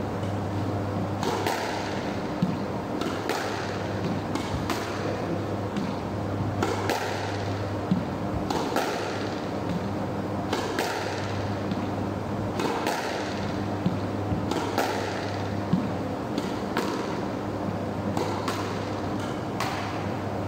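Squash ball being hit back and forth: sharp racket and wall impacts, about one every second or two, ringing around the enclosed court, over a steady low hum.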